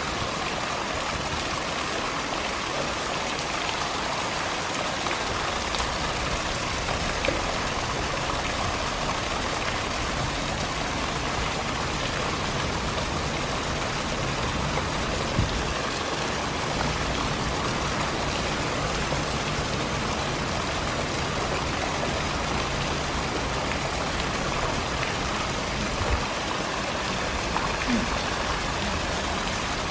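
Steady rushing, splashing water on a pool's surface, with a few brief faint knocks.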